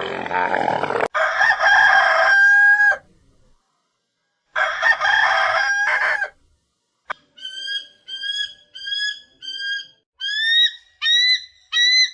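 Rooster crowing twice, each crow a long call that holds its pitch and then drops at the end. A quick run of short, high, rising peeps follows, about two a second.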